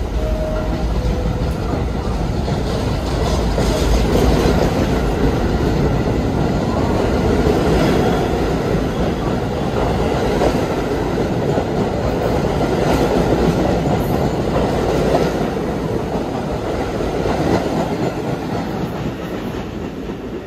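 New York City subway train running through the station, its steel wheels clattering over the rail joints. The noise builds over the first few seconds and eases off near the end.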